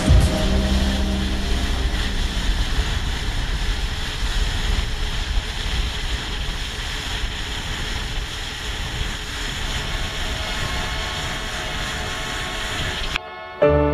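Steady rushing noise of wind and water, after a song fades out in the first second or two.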